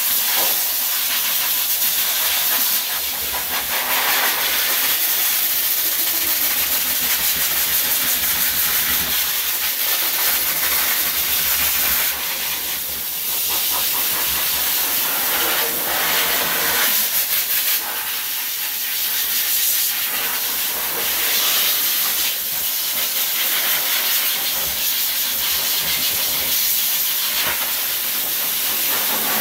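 Dog blow dryer pushing a steady, loud rush of air through its hose onto a freshly bathed coat. The hiss dips briefly a few times as the hose is moved across the fur.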